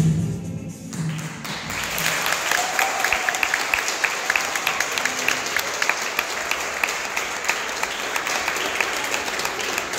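Dance music ends right at the start, and an audience then breaks into steady applause, building over the first couple of seconds.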